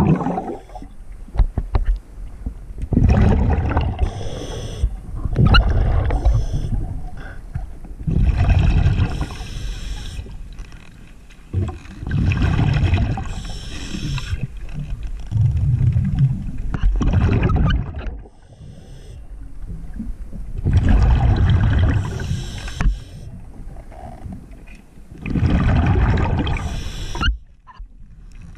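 A diver breathing through a regulator underwater: exhaled bubbles rumble and gurgle in bursts of a second or two, about every four seconds, with quieter hissing between them.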